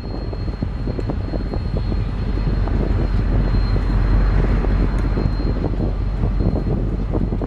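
KiwiRail DC-class diesel-electric locomotive DC4542 working under power as it pulls away, its engine rumble building as it approaches and loudest about four seconds in.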